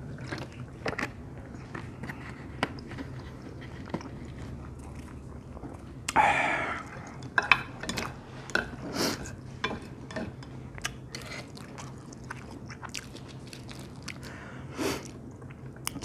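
Eating sounds at a table: a person swallowing water from a plastic bottle, then wooden chopsticks and a wooden spoon tossing noodles on a plate, with scattered light clicks and taps. A louder, longer mouth or handling sound comes about six seconds in, over a low steady hum.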